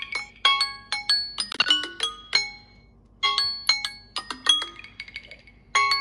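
Samsung Galaxy phone's timer alarm tone sounding because the countdown has run out: a quick phrase of bright, chime-like struck notes, repeating about every two and a half seconds with short pauses between.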